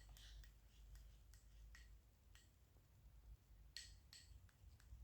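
Near silence: room tone with a dozen or so faint, short clicks scattered through it.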